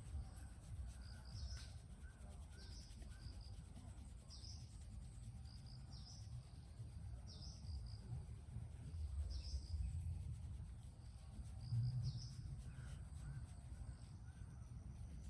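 A bird calling with short, high chirps, repeated about every one to two seconds, over a low, steady outdoor rumble.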